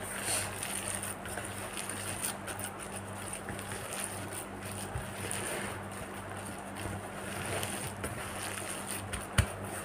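Gloved hand squishing and kneading a wet grated-carrot mixture in a plastic bowl: soft, irregular squelching and plastic-glove rustle over a steady low hum, with a light knock near the end.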